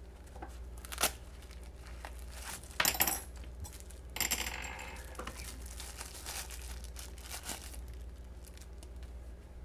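Metal clicks and clinks of balisong butterfly knives being handled, loudest in a quick cluster about three seconds in, with a crinkling rustle like plastic packaging just after and a few light clicks later.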